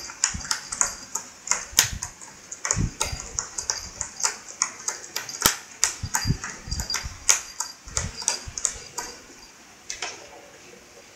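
Cat's claws scratching the corrugated cardboard pad of a Catit Play 'n Scratch toy in quick, repeated scratchy strokes, with a few dull thumps among them. The strokes thin out about ten seconds in.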